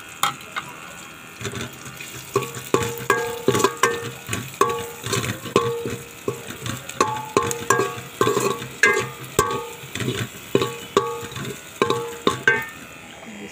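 A slotted metal spoon stirring and scraping green chillies frying in a little oil in an aluminium pot. It makes repeated clanks, a few a second, starting about a second and a half in, and the pot rings briefly after each one. A faint frying sizzle runs underneath.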